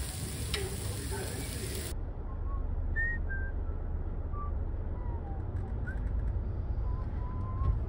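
A steady hiss, then after an abrupt cut about two seconds in, a whistled tune of short single notes, some sliding in pitch, over a low steady hum.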